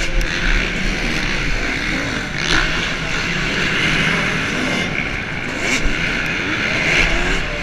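Motocross bike engine revving up and down through the throttle as the bike races the dirt track, heard from a camera mounted on the bike, with wind rushing over the microphone.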